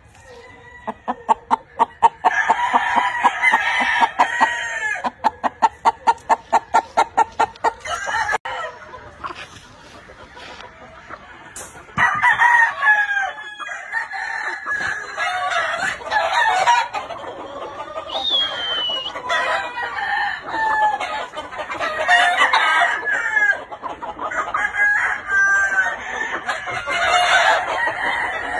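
Gamefowl roosters crowing again and again, the calls overlapping, with clucking among them. There is a quieter stretch about a third of the way through.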